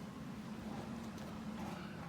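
A small engine running steadily at idle, a low, rapidly pulsing hum.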